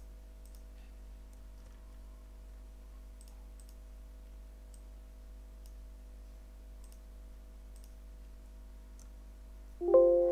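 Faint, sparse computer mouse clicks over a steady electrical hum. Near the end a sudden loud ringing note with several tones sounds and fades over about a second.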